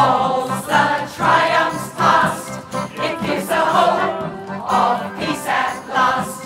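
A large mixed choir of men's and women's voices singing together in loud sung phrases about a second long, over a steady low note underneath.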